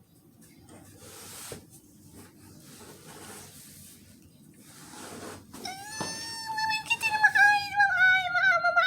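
Faint rustling, then about six seconds in a domestic cat lets out one long, wavering meow that falls slightly in pitch.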